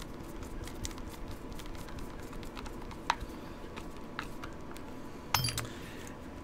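Screwdriver turning a revolver's grip screw back into its rubber grips: scattered small clicks, one sharper click about three seconds in, and a short clatter with a dull thump near the end as the gun is handled.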